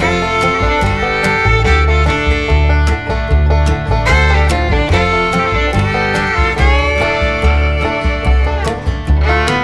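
Background bluegrass-style music: fiddle over guitar and banjo, with a steady bass beat.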